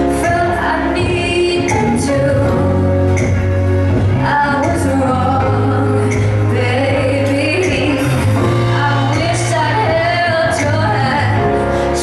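Live pop band with a woman singing lead into a microphone, over a steady bass line and a drum kit with regular cymbal hits.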